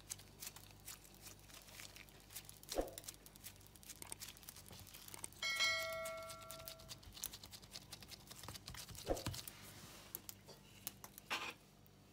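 Faint crinkling and rustling of plastic gloves handling soft potato-and-bulgur dough as it is pressed into patties on a stainless steel tray, with scattered small taps. About halfway through, a bright chime rings for over a second: the ding of a subscribe-button notification effect.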